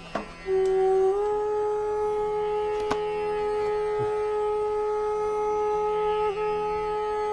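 Bamboo flute (bansuri) holding one long note, sliding up slightly about a second in, over a soft low drone, as Indian classical-style background music.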